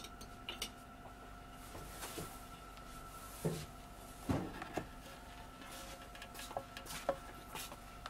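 Light knocks and clinks of glassware being handled: a glass coffee server taken hold of on its wooden-stand scale and a small glass cup, the loudest knocks about three and a half and four and a half seconds in, with a couple of fainter ticks later. A faint steady hum runs underneath.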